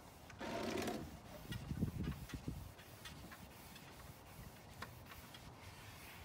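A gloved hand rubbing Danish oil into a teak tabletop: one short scrubbing swipe about half a second in, then a few low bumps and faint scattered ticks.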